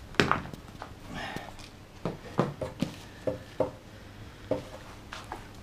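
Handling noise from a DJ player and its power cable being set up: about eight short knocks and clicks at irregular intervals, some with a brief dull ring, with light rustling of plastic wrap.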